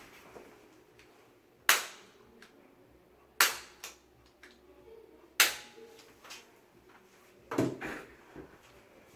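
Spring-loaded Activator chiropractic adjusting instrument firing three sharp clicks about two seconds apart, each a low-force thrust into the patient's pelvis. A duller knock follows near the end.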